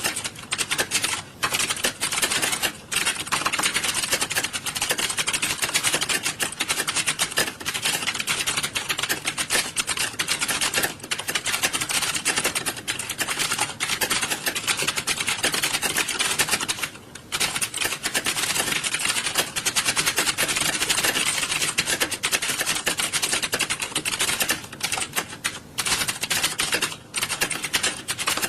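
Computer keyboards being typed on at a fast, steady pace, a dense continuous clatter of key clicks with a brief lull about 17 seconds in.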